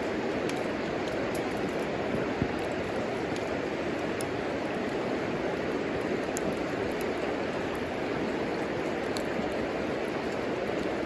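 Wood fire burning in a homemade wood stove: a steady rushing noise with sparse small crackles and pops, and one sharper pop about two and a half seconds in.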